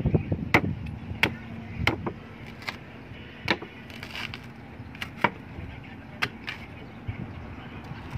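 A long knife chopping the husk off a sugar palm (palmyra) fruit: about ten sharp, uneven cuts over eight seconds.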